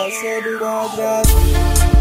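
Electronic dance music, tarraxo style: a high synth tone sweeps steadily downward over held notes, then a heavy deep bass beat comes in just past halfway.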